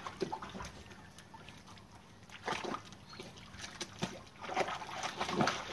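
A puppy splashing in shallow pond water: a few short, intermittent splashes and sloshes with quiet gaps, busiest near the end.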